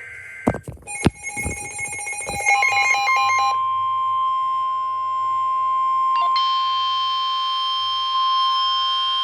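Emergency Alert System alert tone: one steady, loud electronic tone starting about two and a half seconds in and held to the end. Before it come a few sharp clicks and a brief run of rapidly changing electronic beeps.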